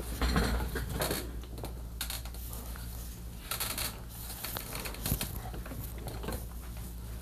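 Handling noise at a workbench: a few brief rustling and scraping bursts, the loudest near the start, over a steady low electrical hum.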